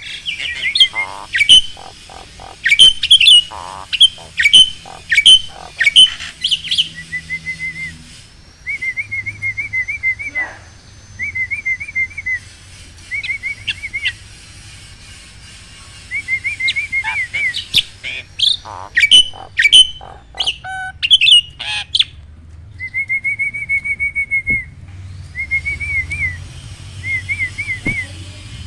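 Starlings (jalak) calling. Loud, sharp whistled calls and chirps for about the first seven seconds, then short trilled chirping phrases repeated again and again with pauses between them.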